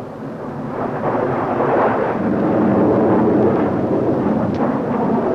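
Jet aircraft flying past: a steady rushing engine noise that swells about a second in and then holds.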